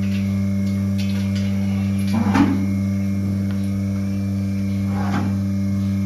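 Milking machine running with a steady electric motor hum from its vacuum pump. Two short noises break in, about two and five seconds in.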